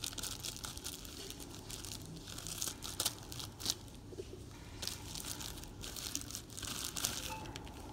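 Parcel packaging crinkling and rustling in the hands as it is pulled at and fails to open, with a couple of sharper crackles near the middle.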